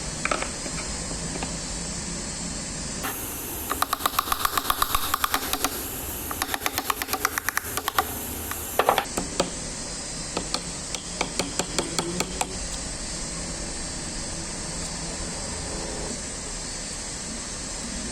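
Rapid, even mechanical clicking, about nine clicks a second for several seconds, then a sharp click and a few scattered clicks, over a steady hiss.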